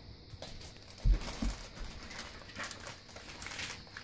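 Plastic packaging crinkling and rustling as a laptop is lifted out of its cardboard box, with a dull low thump about a second in.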